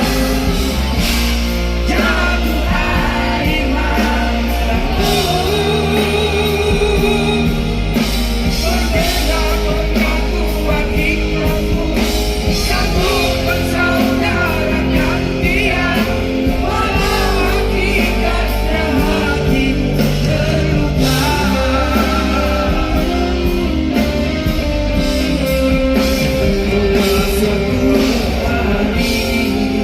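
Live rock band performing a song, with electric guitar, bass and drums under a sung vocal line.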